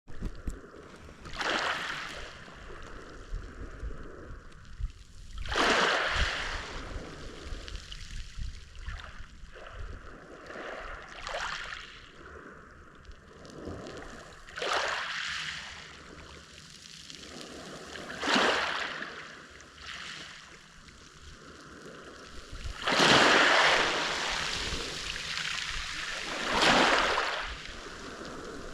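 Small waves of the Mediterranean Sea washing onto the shore, breaking every few seconds in rising and falling hisses over a steady wash, with the biggest swells near the end.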